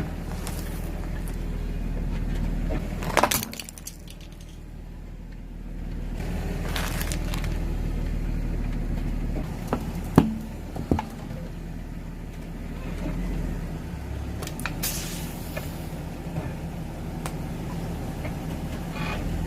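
A car's engine running steadily at low speed, with a few sharp cracks and crunches scattered through it as the tyres crush objects.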